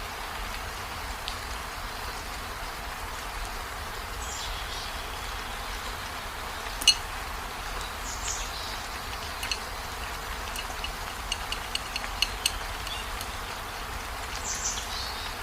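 Steady rain-like hiss with a short, high, falling chirp about every four seconds, three times in all. There is one sharp click about seven seconds in and a quick run of small clicks a few seconds later.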